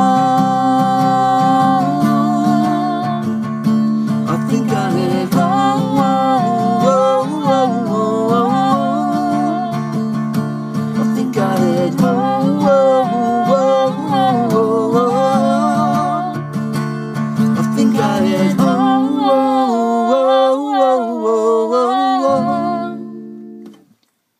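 Acoustic guitar strumming under a wordless sung melody that wavers up and down, the closing bars of a song. The low chords stop about 19 seconds in and the last notes die away just before the end.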